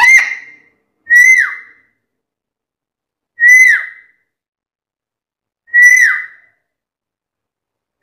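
Black-capped lory giving a loud whistled call over and over, about every two seconds; each call is a short note that holds briefly and then drops sharply in pitch.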